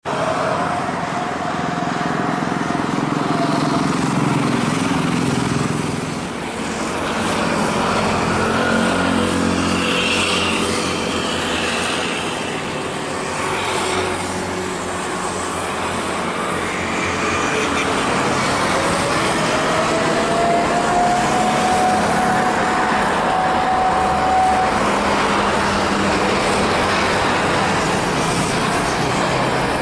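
A Boeing 787-8 Dreamliner taxiing at low thrust, a steady jet noise mixed with road traffic. A whining tone rises and then holds about two-thirds of the way in.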